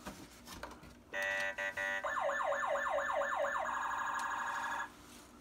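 Electronic siren sound effect from a boxed Tonka toy vehicle. It starts about a second in with a few short steady beeps, then goes into quick rising siren sweeps about three or four a second, then holds a steady tone that cuts off suddenly near the end.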